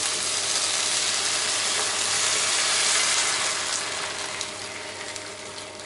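Stock poured into a hot frying pan of chicken and onions, hissing and sizzling as the liquid hits the hot pan. The sizzle dies down over the last couple of seconds as the pan fills and the liquid cools it.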